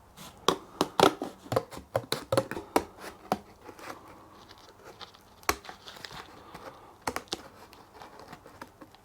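Cardboard being handled, crinkling and crackling with sharp taps. The sounds come thick and fast for about the first three and a half seconds, then thin out to scattered taps.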